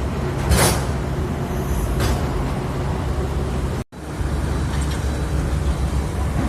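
Heavy diesel engine running steadily at low revs, with a brief noisy burst about half a second in and a weaker one around two seconds in. The sound drops out for an instant just past the middle.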